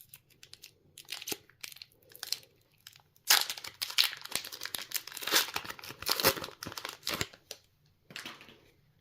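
Foil Pokémon booster pack wrapper crinkling and tearing as the pack is opened, in irregular bursts that are loudest in the middle and die away near the end.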